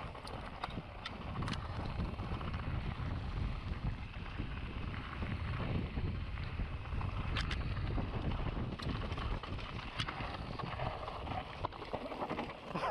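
Mountain bike descending a rough dirt trail: wind buffeting the microphone over the rumble of tyres on dirt and stones, with occasional sharp clicks and rattles from the bike.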